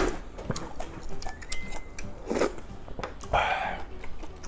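Close-miked eating noises of a man taking in and chewing a mouthful of spicy beef soup: wet mouth clicks and smacks, with a couple of short breathy puffs.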